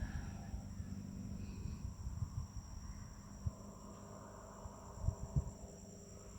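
Insects calling with a steady, high-pitched trill of two even tones that holds without a break, over scattered low bumps.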